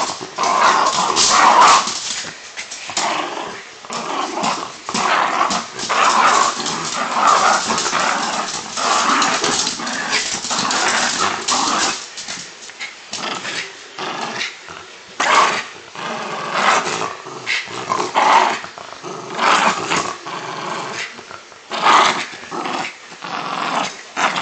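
Jack Russell terrier growling in rough play, tugging at a rope toy, in irregular loud surges that go on with hardly a pause.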